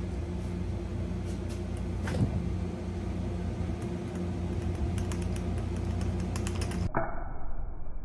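Steady low mechanical hum with a few light clicks, which match handling of a hand-held digital scale and line under strain; about seven seconds in the sound changes abruptly to a thinner, muffled background.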